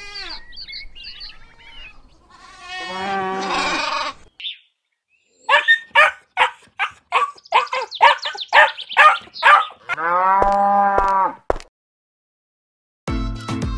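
Cattle mooing in a string of separate calls, with a run of about ten short, sharp calls in the middle and one long, steady moo near the end. Music starts just before the end.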